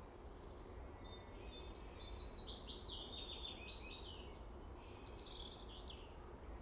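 A songbird singing a fast run of high, sharply falling notes that lasts about four seconds, over a steady low background rumble.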